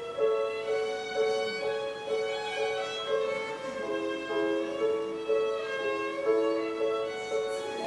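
Chamber ensemble playing silent-film accompaniment, a violin carrying a slow melody of held notes that steps lower in the middle and climbs back near the end.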